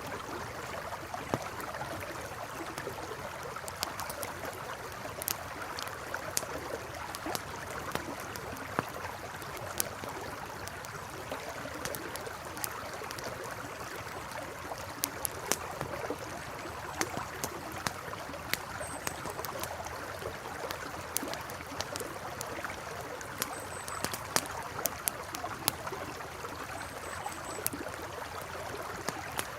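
River water flowing steadily, with a campfire crackling over it: sharp pops and snaps scattered irregularly. A few faint high chirps come in over the second half.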